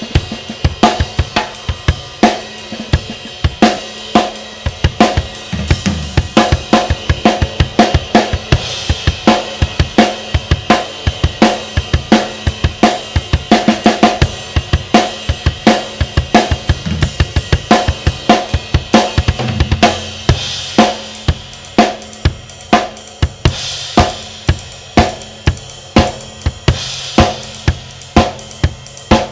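Drum kit played in a steady groove, snare and bass drum hits over a continuous ringing wash from a Zildjian Avedis 24-inch Medium Ride cymbal.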